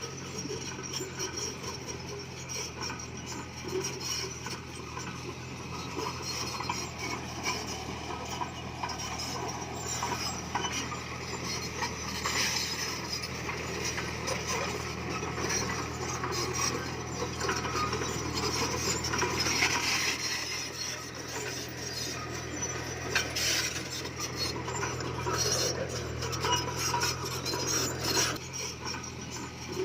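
Komatsu bulldozer's diesel engine running steadily under the clatter of its steel tracks and the scraping and grinding of pushed stone, with a few louder knocks.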